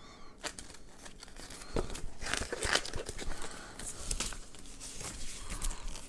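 Paper and cardboard rustling and crinkling from handling a paper instruction booklet and a cardboard product box. It comes as a series of short rustles, loudest about two to three seconds in.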